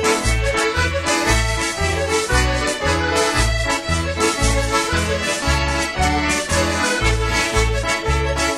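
Instrumental background music: an accordion-led traditional tune over a steady bass beat of about two notes a second.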